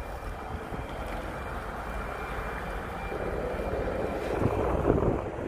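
Wind buffeting the microphone over a low outdoor rumble, growing louder with uneven gusts in the second half.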